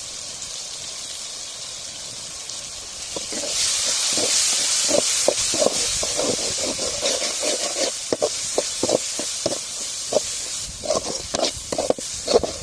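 Onion-tomato masala with spice powders frying in oil in a pan, sizzling louder from about three seconds in, while a spatula scrapes and stirs it in steady strokes about twice a second.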